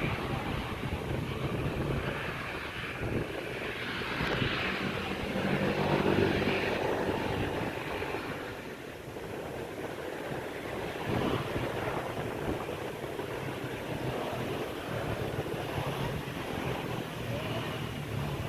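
Airliner engine noise from a passing plane, swelling to its loudest about six seconds in and then easing off.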